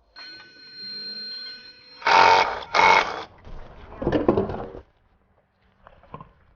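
A power tool run in short bursts on fasteners under a car during engine-removal work: a faint whine, then two loud half-second bursts and a weaker third, ending in a few clicks.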